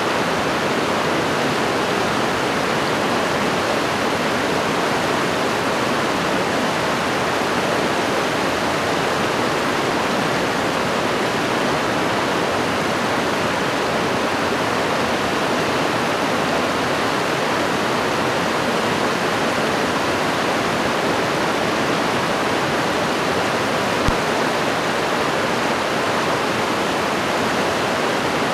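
A fast, shallow stream rushing over rocks, a steady, even sound of water. A single brief click comes near the end.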